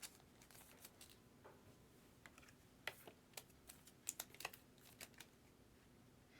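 Faint, scattered light clicks and taps, about a dozen, most bunched together in the second half.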